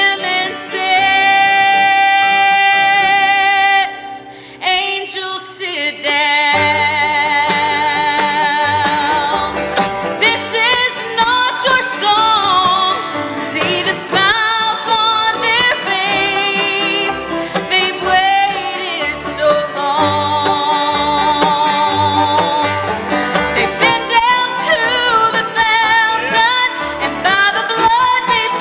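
Live bluegrass gospel band: a woman sings the lead with vibrato over mandolin, acoustic guitar and upright bass. She holds a long note near the start, the band thins out briefly about four seconds in, and the bass comes back in about two seconds later.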